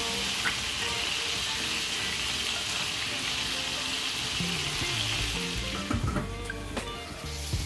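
Chicken pieces sizzling in a stainless steel pot as they are stirred with a spatula. About six seconds in, the sizzle drops and there are a few clinks as the steel lid is set on the pot.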